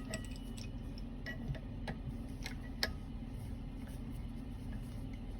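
Light metal clicks and taps of a puller being fitted to the pump's impeller and shaft, about six irregular clicks in the first three seconds and fewer after, over a steady low hum.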